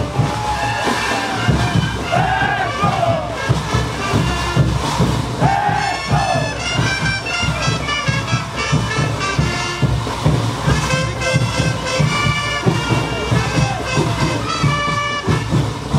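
Live brass band playing a caporales tune over a steady, driving drum beat, with the horns holding long chords through the second half. Voices rise over the music in the first few seconds.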